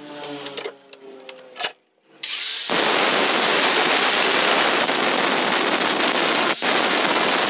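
Angle grinder with an abrasive disc grinding rust off a steel crowbar: after about two seconds of quieter clicks and handling, the grinder comes in loud and runs steadily with a high, hissing grind.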